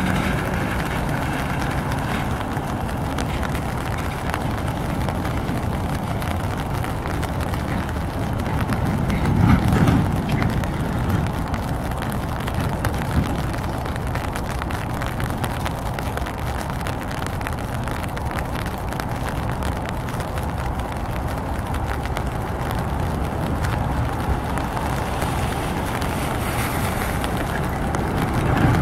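Steady rumble of an approaching Boeing 737 MAX 9's CFM LEAP-1B turbofans on landing approach, getting louder near the end as the airliner nears. There is a brief low whoosh about nine seconds in.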